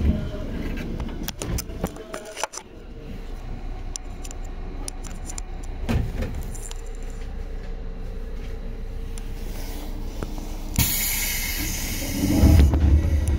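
Seibu 2000 series electric train pulling out, heard from inside the car: a steady traction-motor tone over the rolling of the wheels, with rattling clicks in the first few seconds. Near the end a loud hiss cuts in, followed by a heavier low rumble.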